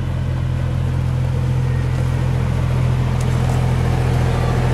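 Miniature railway locomotive with a diesel outline, hauling a passenger train as it approaches, its engine a steady low drone that grows slightly louder as it comes closer.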